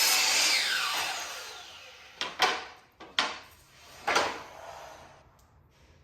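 Power saw winding down with a falling whine, then four short sharp knocks about a second apart.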